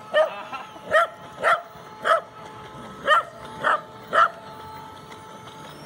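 Small terrier barking repeatedly, about seven sharp barks at roughly two a second, then falling quiet for the last second and a half.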